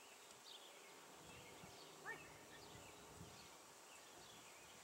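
Near silence: faint outdoor ambience with scattered distant bird chirps and a faint steady high hum.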